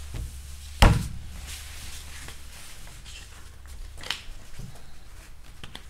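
A single sharp, heavy thump about a second in, then light clicks of cards and poker chips handled on a felt table, over a steady low hum.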